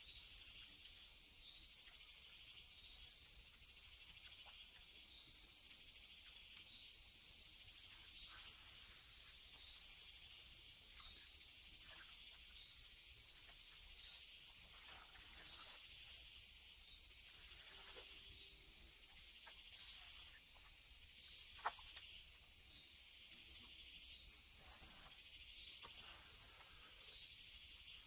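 A high-pitched animal call repeated steadily, about once every 1.3 seconds, each call rising and then holding, over a faint hiss, with a few faint ticks.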